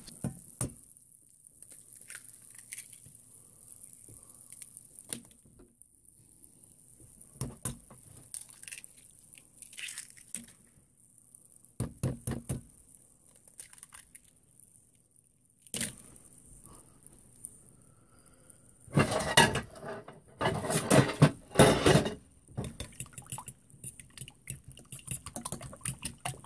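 Eggs tapped and cracked on the rim of a stainless steel saucepan one after another, then beaten in the pan, the utensil clinking against the steel in quick, regular strokes near the end.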